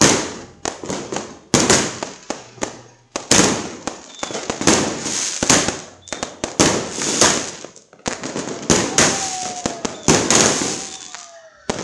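Fireworks and firecrackers going off in rapid, overlapping bangs, each trailing off into crackling. A faint whistle falls in pitch about two seconds before the end.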